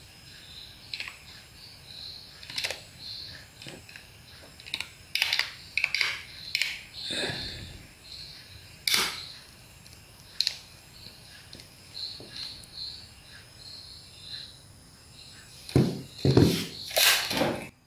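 Plastic back cover of a Samsung smartphone being fitted and pressed on by hand: scattered light clicks and scrapes as it snaps into place. A few louder knocks come near the end as the phone is handled on the desk.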